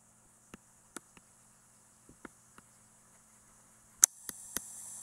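Faint, irregular clicks and taps of a digital pen while writing by hand, with a few louder clicks about four seconds in, where a steady hiss also comes up.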